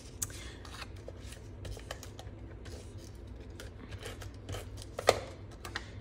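Hands handling and pressing a paper strip onto cardstock, giving soft paper rustles and scattered light clicks and taps, with one sharper click about five seconds in. A steady low hum runs underneath.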